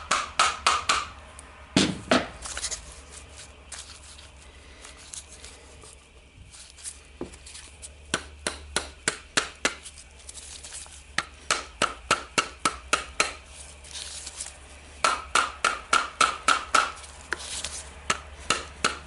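Hammer tapping repeatedly on the gear housing of an Eibenstock EHD 1300 core drill to knock the housing apart, in quick runs of sharp blows, each with a short metallic ring. The blows pause for a few seconds after the start, then come back in several runs.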